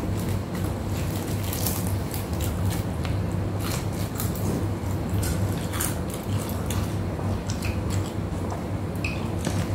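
Close-up eating sounds: crunching and chewing of crispy deep-fried tilapia, with small clicks and crackles from fingers pulling the fried fish apart, over a steady low hum.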